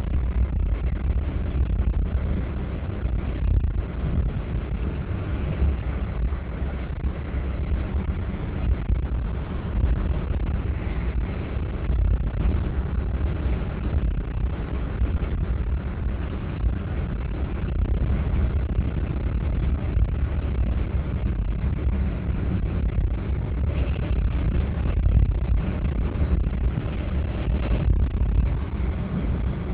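Steady low rumble of a car driving, heard from inside the cabin: engine, tyre and road noise.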